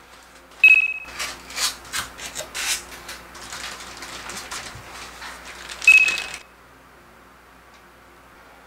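Hands unpacking a figure from a styrofoam tray: clear plastic bags crinkling and rustling, with a short, sharp squeak of foam about a second in and again about six seconds in. The handling stops abruptly after about six and a half seconds.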